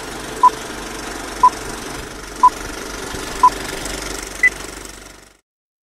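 A countdown of short electronic beeps one second apart, four at one pitch and then a fifth an octave higher, over a steady rough noise. Everything cuts off suddenly near the end.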